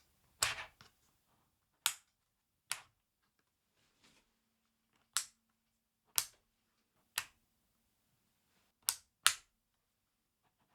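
About eight separate sharp plastic clacks and taps, spaced irregularly roughly a second apart with a quick pair near the end, from the NuPhy Air75 V3 low-profile keyboard being handled and set against a desk.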